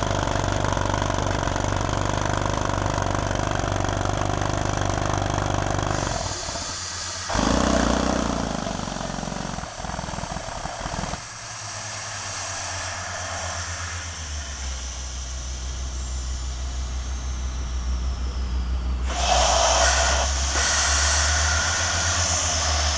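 Crawler drill rig running: a steady low engine hum with hissing air, its tone changing abruptly several times, and a loud hiss over the last few seconds.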